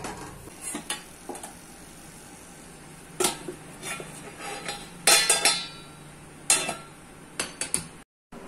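Stainless steel plate and pan clinking and clanking against each other as the pan is covered and set over the flame. The knocks come irregularly, with a louder cluster about five seconds in, over a faint steady hum.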